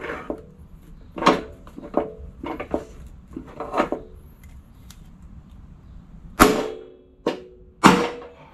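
Metal tools clanking on a small mower engine as the flywheel is worked loose from the crankshaft: a few scattered clanks, then after a short pause two loud, sharp metallic strikes with a brief ring near the end.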